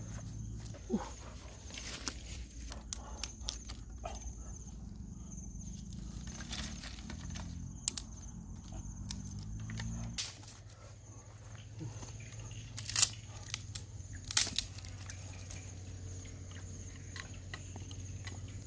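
Dry sticks and twigs snapping and clattering as they are broken and laid for a fire, with scattered sharp cracks; the two loudest come about two-thirds of the way through.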